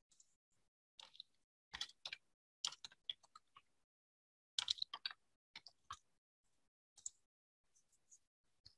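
Faint computer keyboard typing: irregular key clicks in short runs.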